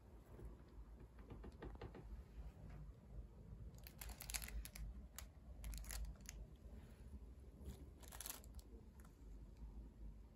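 Faint crinkling of plastic food wrap on packaged meal trays being handled, in a few short crackles about four, six and eight seconds in.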